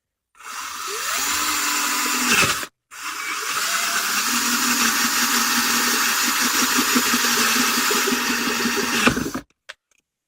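Cordless drill driving a 1-1/8 inch hole saw through a car's interior panel to cut a round hole for a USB port. The motor spins up with a rising whine and runs about two seconds, stops briefly, then cuts steadily for about six seconds more and stops suddenly.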